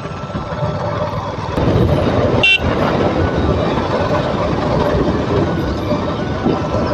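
KTM single-cylinder sport bike running on the move, with engine and road noise that picks up about a second and a half in. A short horn toot sounds about two and a half seconds in.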